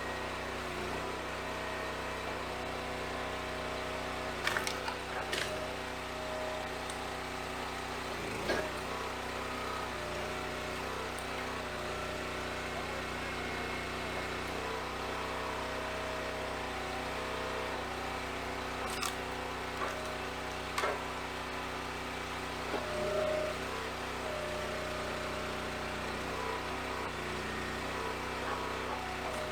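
A log splitter's engine runs steadily, with a few sharp cracks and knocks of wood spaced several seconds apart as logs are split.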